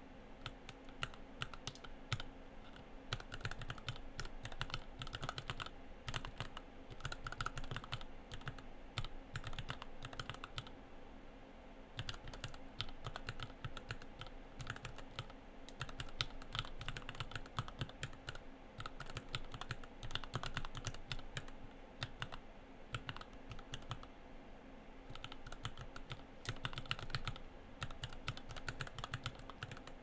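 Steady typing on a Gherkin 30-key mechanical keyboard with Gateron Oil King linear switches and PBTFans WoB PBT keycaps, in a sanded, painted 3D-printed case with a TPU insert meant to keep it from sounding hollow. A dense run of key clacks that thins out briefly twice.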